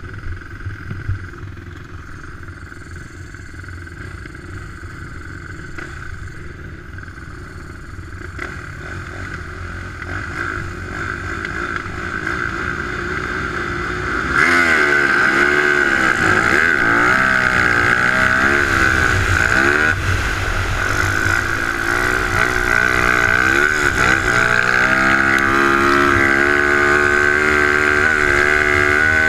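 Racing ATV engine running at the start line, slowly building. About halfway through the quad launches: the engine revs hard and pulls away, its pitch climbing and dropping repeatedly under full acceleration.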